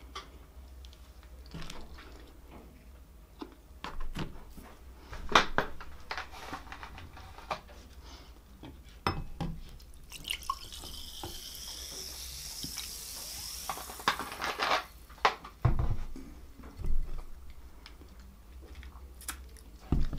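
Cola poured from a plastic bottle into a glass, fizzing for about four seconds midway. Scattered knocks and clicks of handling on the table come before and after.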